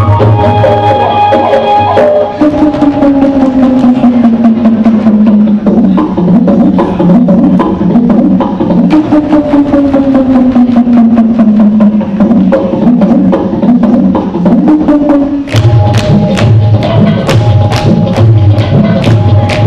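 Rajasthani folk dance music: drums and sharp, clicking hand-percussion strikes under a sustained melody. The deep drum beat drops out after about two seconds, leaving a melody line that slides down in pitch twice. About three-quarters of the way through, the deep drum comes back with faster strikes.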